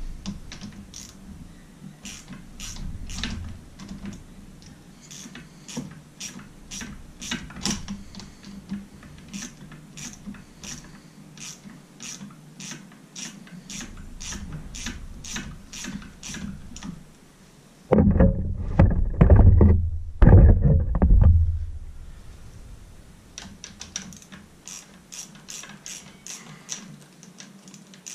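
Hand ratchet wrench clicking at about two or three clicks a second as nuts are backed off. About two-thirds of the way through there is a louder, lower knocking and rattling for about three seconds.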